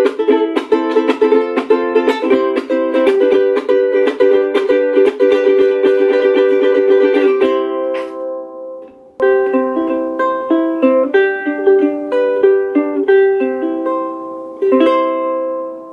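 Flight Travel ukulele played solo: quick strummed chords for about the first half, a chord left ringing, then slower picked notes and chords, ending on a chord that rings out.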